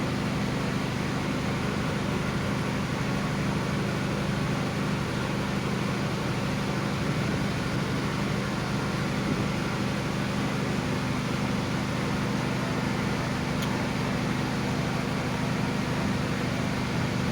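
Steady low drone of a passenger ship's engines and machinery, an even hum that holds at one level throughout.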